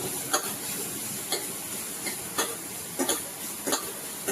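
Finely chopped onion frying in hot oil in a kadhai, a steady sizzle, with a spoon knocking and scraping against the pan about once a second as it is stirred.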